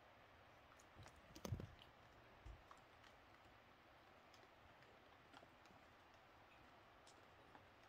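Near silence broken by a few soft taps and clicks, the loudest with a dull thump about a second and a half in, another knock about a second later, and faint ticks after.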